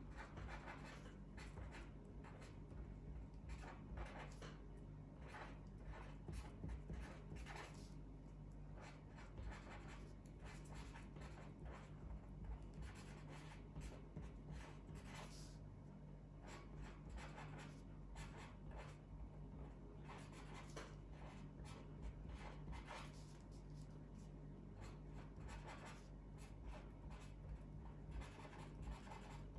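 Handwriting on paper: a faint, continuous run of quick scratching strokes, over a low steady hum.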